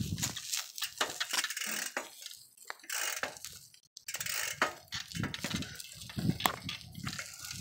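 Irregular clicks, clinks and rattles of a bicycle jolting over bumpy concrete paths, easing off briefly about three seconds in.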